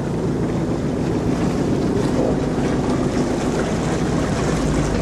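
Boat engine running steadily as the boat comes into an anchorage, with wind noise on the microphone.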